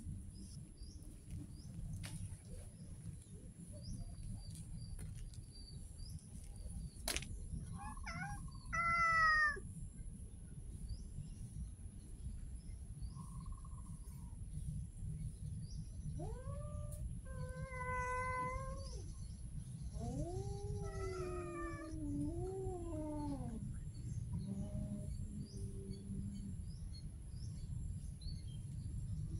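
Ginger tabby cat meowing several times: a loud meow about nine seconds in, a short one soon after, then two long drawn-out meows, the last wavering up and down in pitch.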